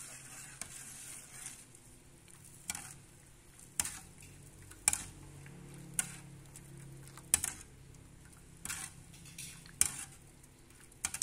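A metal ladle stirring broth in an aluminium wok, clinking sharply against the side of the pan about once a second as the just-added sugar, MSG and salt are stirred in to dissolve.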